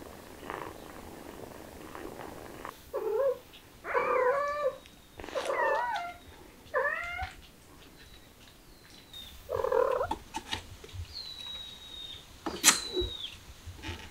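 A cat purring softly, then, about three seconds in, a cat meowing five times, loud bending calls in quick succession. A sharp click near the end.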